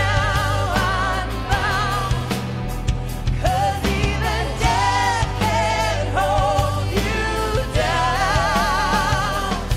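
Live worship band: a woman singing lead with vibrato into a microphone over drums and electric guitar.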